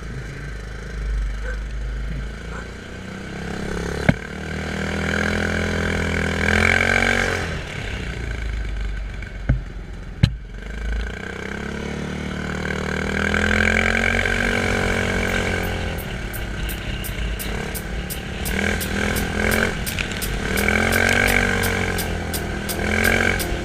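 Quad bike (ATV) engine being ridden, revving up and down again and again, with a few sharp knocks along the way. Fast, even ticking runs through the second half.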